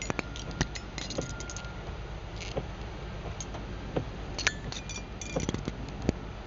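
Raindrops ticking and clicking irregularly on a car's windshield and roof, heard from inside the cabin over the car's low steady rumble.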